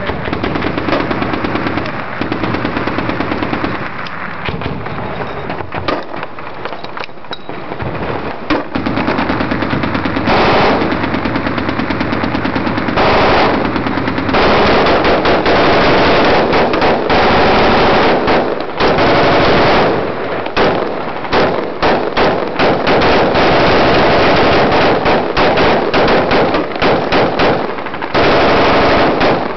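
Heavy automatic weapons fire laid down as suppressing fire: rapid shots throughout, growing louder into long continuous bursts from about ten seconds in, with short gaps between bursts near the end.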